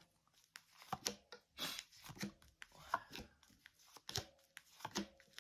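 Tarot cards being handled and laid out: quiet, irregular card flicks and slides.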